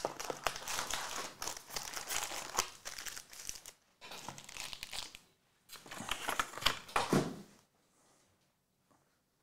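Foil-wrapped Topps Chrome Formula 1 trading-card packs crinkling and rustling against their cardboard box as they are pulled out and stacked. The rustling comes in three stretches and stops a couple of seconds before the end.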